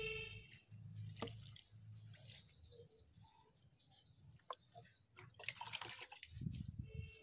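Diluted liquid fertilizer poured from a plastic mug, trickling and dripping onto the soil of potted plants. Birds chirp in the background, most clearly in the middle.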